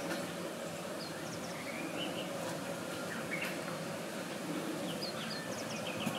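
Outdoor garden ambience: a steady background hush with small birds chirping now and then, short high calls scattered through.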